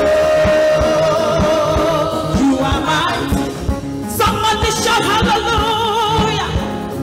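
Live gospel worship music: singers holding long, wavering notes over a drum kit, electric guitar and keyboard.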